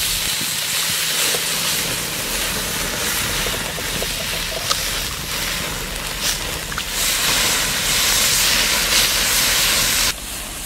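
Marinated pork offal sizzling on a wire grill over a wood fire, with marinade dripping onto the hot coals: a dense steady hiss with a few small pops. It grows louder for the last few seconds and cuts off suddenly near the end.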